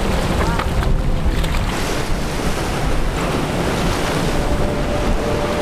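Surf breaking, with strong wind buffeting the microphone in a loud, steady rush.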